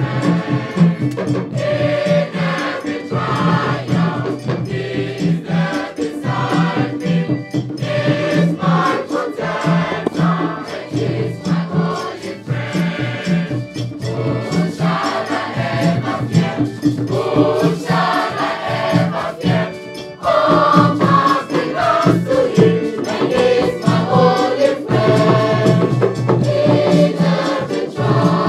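Mixed-voice school choir singing in harmony, accompanied by hand drums keeping a steady beat.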